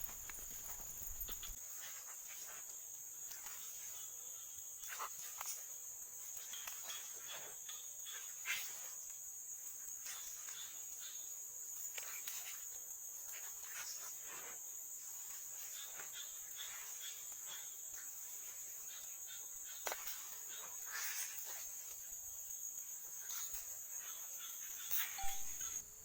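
Steady high-pitched chorus of insects, likely crickets, with scattered light clicks and taps over it.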